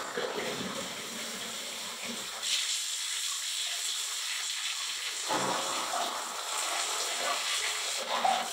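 Water running hard from the spout of a newly installed single-lever hot-and-cold shower mixer valve, a steady hissing rush as the new valve is tested. The rush changes twice, getting brighter about two and a half seconds in and fuller about five seconds in.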